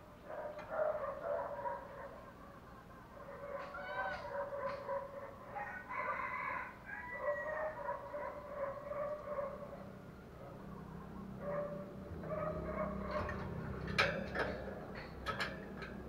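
Spotted dove cooing, mixed with a rooster crowing, in repeated drawn-out pitched calls. A sharp click near the end.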